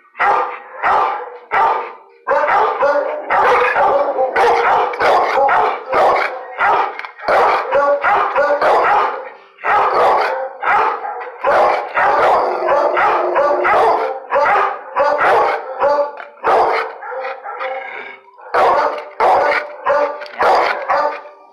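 Dogs barking in a shelter kennel: loud barks in close runs with only brief pauses, while the white bulldog-type dog at the bars barks with its head raised.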